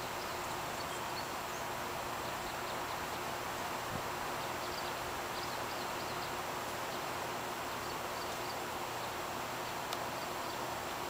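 Steady rushing outdoor background noise with faint, short high chirps scattered through it, and a soft tick about four seconds in and again near the end.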